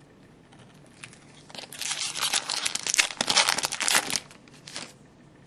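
Foil wrapper of a Black Diamond hockey card pack crinkling and tearing as it is opened, for about two and a half seconds from roughly a second and a half in, with a brief last crinkle near the end.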